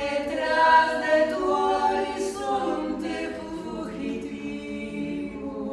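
A woman singing unaccompanied, holding long notes of a slow melody.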